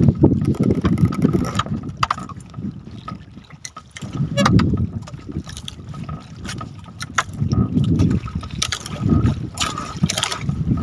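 Wind and water sounds aboard a small boat at sea: uneven low rumbling surges every couple of seconds, with a few light knocks.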